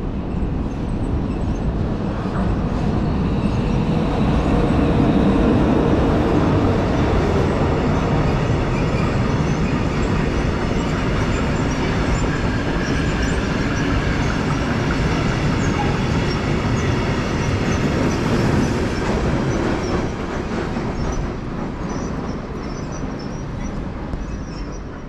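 A train passing on the line: steady rolling noise of wheels on rails, loudest a few seconds in and easing off toward the end.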